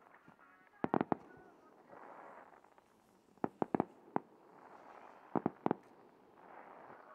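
Small aerial fireworks shells bursting: three quick clusters of sharp bangs, each three or four reports close together, coming roughly two seconds apart.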